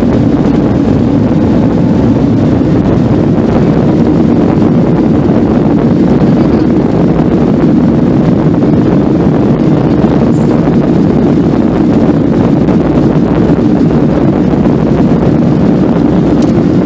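Steady rumble of a Boeing 737's jet engines and airflow, heard from inside the passenger cabin as the plane taxis.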